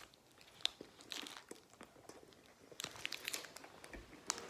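Blue plastic wrapper of an ice-cream stick crinkling in the hands, in short scattered crackles.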